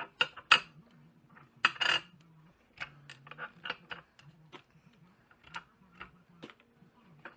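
Steel hydraulic-cylinder piston halves and seal parts clinking and knocking against each other and a metal workbench as they are handled, with a few sharp knocks in the first two seconds and lighter scattered clicks after.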